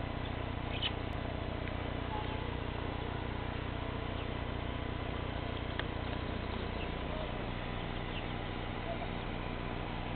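Steady background hiss and low hum, with a few faint short clicks.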